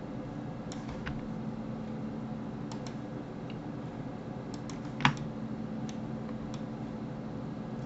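Scattered clicks of a computer mouse and keyboard, singly and in quick pairs, the loudest about five seconds in, over a steady low hum.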